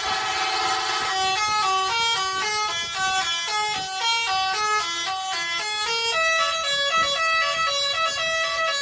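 Bus basuri melody horn playing a quick tune. For about the first second several tones sound together, then single notes step up and down several times a second.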